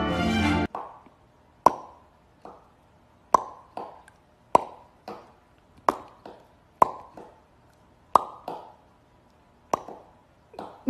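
Background music cuts off about half a second in. Then come a dozen or more short, sharp pops, each with a brief ringing tone that fades quickly, spaced irregularly and often in pairs.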